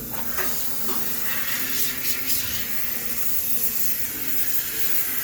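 High-pressure steam cleaner hissing as it sprays steam into a coin-laundry washing machine to sterilise it. The hiss sets in about half a second in, with a few clicks near the start.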